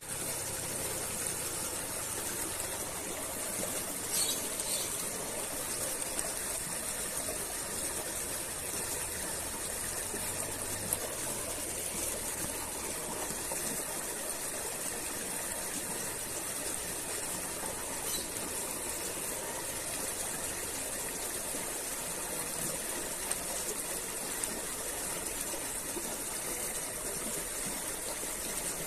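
Steady outdoor background hiss by a muddy creek, with a thin high band running throughout and a faint low hum through roughly the first dozen seconds.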